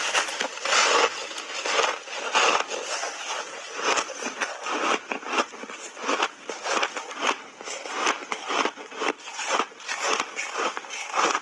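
Refrozen block ice coated in matcha and milk powder being bitten and chewed: rapid, irregular crunching and cracking, several crunches a second, with a few heavier bites mixed in.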